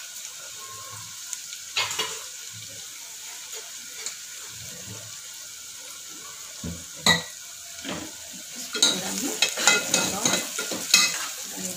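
Chopped onions frying in oil in an aluminium pressure cooker, a steady sizzle. A couple of sharp knocks, then from about nine seconds in a steel slotted spoon clinking and scraping against the pot as the onions are stirred.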